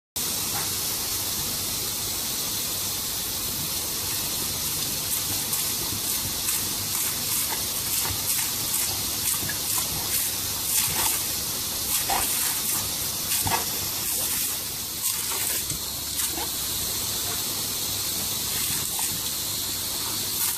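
Garden hose spraying a steady hissing jet of water, with scattered sharper splashes, mostly in the middle stretch, as a dog bites at the stream.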